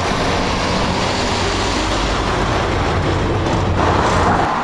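Heavy goods lorry passing close by, its diesel engine running with a deep, steady rumble and loud tyre noise. About three and a half seconds in, the sound turns brighter.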